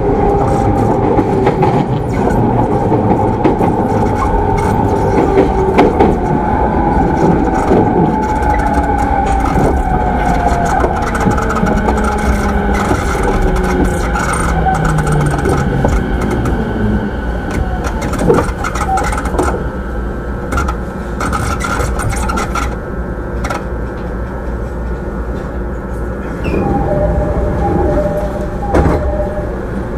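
JR East E217-series commuter train's motor car running, with wheel-on-rail rumble and the traction motor and inverter whine falling steadily in pitch over the first fifteen seconds or so as the train slows under braking. The running noise eases somewhat after about twenty-three seconds, with a few steady tones near the end.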